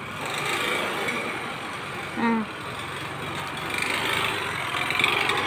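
Steady background noise of passing motor vehicles, swelling a little in the last second and a half, with one brief pitched sound about two seconds in.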